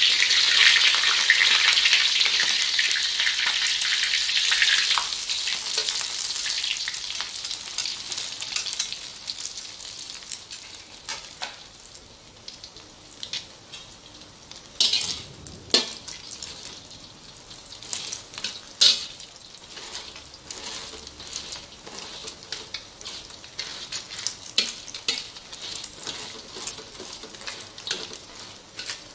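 Egg frying in hot oil in a wok: a loud sizzle that dies down over the first several seconds into a quieter, steady crackling fry. Scattered sharp clicks come through later on.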